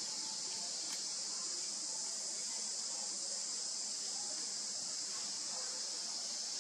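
Steady high-pitched insect chorus, an unbroken drone that holds the same level throughout.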